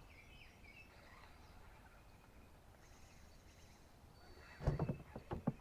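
Faint bird chirps over a quiet outdoor background, then a quick cluster of several knocks about four and a half seconds in.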